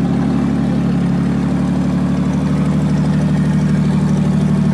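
An off-road 4x4's engine running steadily at constant revs, loud and close.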